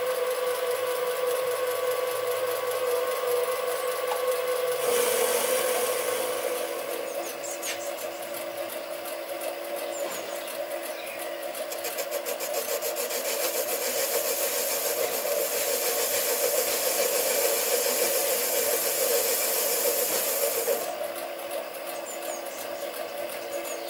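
Sieg SC3 mini lathe running with a steady motor whine while the tool faces the end of a spinning metal workpiece. A louder hiss of the cut comes in about five seconds in and drops away about three seconds before the end.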